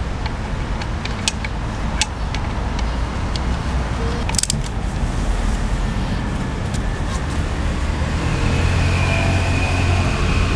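Steady low rumble of a running motor vehicle engine, growing a little louder near the end. A few sharp metallic clicks come through it as the engine-cover cap is fitted and tightened.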